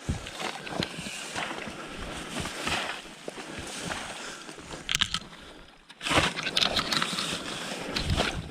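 A packraft being paddled: paddle strokes splashing and sloshing in the water, with many sharp clicks and knocks. The sound drops away briefly a little before two-thirds of the way through, then returns louder.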